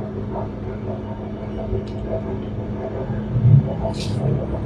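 Quiet eating sounds of a person chewing, over a steady low background hum. There is a low thump about three and a half seconds in and a short crisp sound just after.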